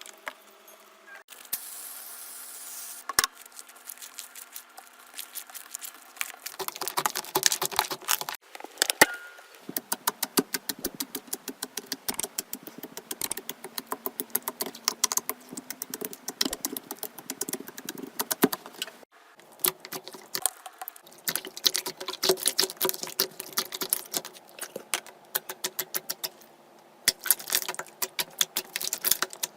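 Close-miked slime being squeezed, poked and stretched, giving dense rapid crackling clicks and small pops. The texture changes abruptly several times as one clip gives way to another.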